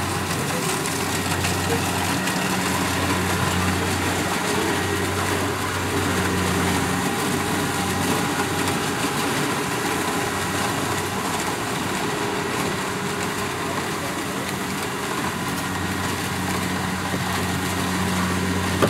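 Kubota DC-70 Plus rice combine harvester's diesel engine running steadily under working load, a continuous low hum.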